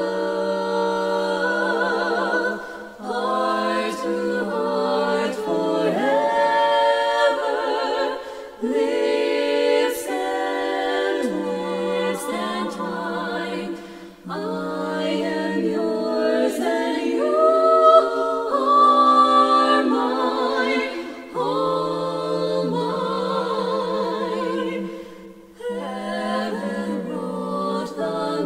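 Four women's voices singing unaccompanied four-part close harmony in barbershop voicing (tenor, lead, baritone, bass), sustaining chords with vibrato in phrases that break every few seconds.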